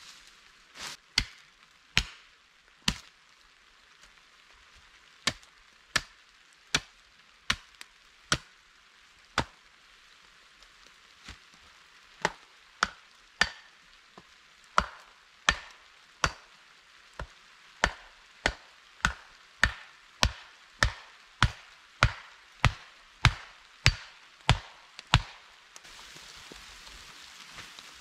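Axe strikes on wood: a long series of sharp chops, irregular and spaced out at first, then settling into a steady rhythm of about one and a half strikes a second, and stopping a few seconds before the end.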